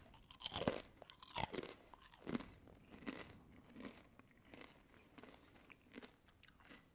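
A mouthful of thick, crunchy potato chips being chewed: sharp crunches about once a second at first, growing softer and farther apart as the chips are chewed down.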